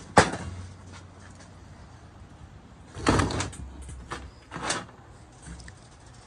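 Loose metal motor parts clanking on a wooden workbench as a disassembled motor's perforated metal cover and its bolts and nuts are handled: a sharp clank just after the start with a low ring after it, a cluster of rattling knocks about three seconds in, and another knock near five seconds.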